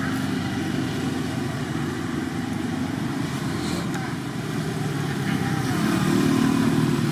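A motor vehicle engine running steadily, getting louder about six seconds in.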